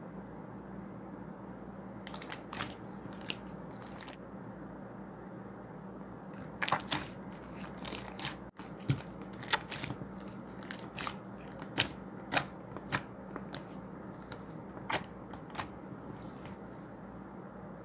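Slime being pressed and worked by hand, giving sharp crackling pops and clicks at irregular intervals, starting about two seconds in, over a steady faint hiss.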